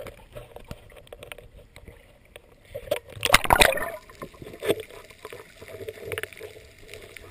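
Seawater splashing and bubbling around a diving camera as it goes from the surface to underwater, with one loud rush of water about three seconds in, then muffled underwater sound with scattered clicks.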